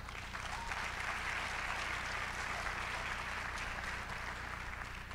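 Audience applauding, a steady patter of clapping that sets in at once and dies away near the end.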